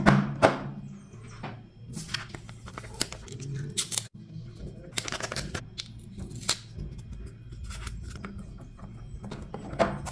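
Toy packaging being handled and opened: a series of short, sharp bursts of packaging noise, over steady background music.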